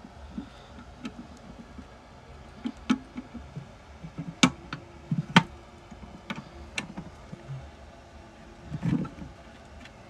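Sharp clicks and light knocks of an electrical enclosure's door and triangular-key lock being handled, with the loudest two clicks about a second apart near the middle.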